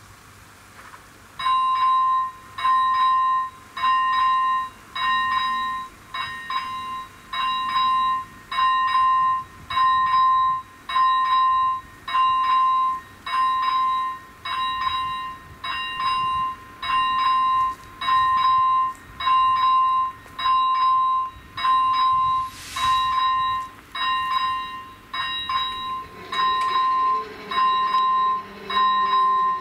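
Railway level crossing warning signal's electronic bell switching on and ringing in even, loud dings about once a second, the warning that a train is approaching. A lower steady sound joins in near the end.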